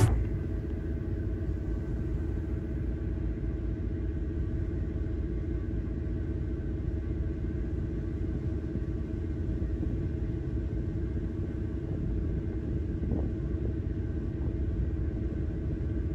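A steady low engine rumble with a constant droning hum.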